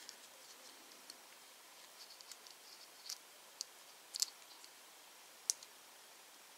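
Scattered small sharp clicks and ticks of a spring crocodile clip, wire leads and a plastic blade fuse being handled as the clip is fitted onto the fuse's leg. The loudest clicks come just after four seconds in, with another sharp one near five and a half seconds.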